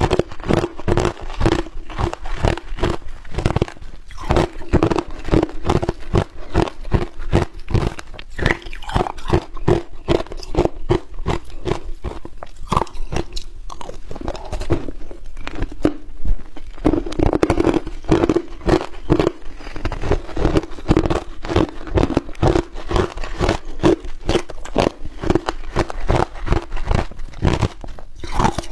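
Crushed ice being bitten and chewed right at a lapel microphone: dense, continuous crunching with no pause.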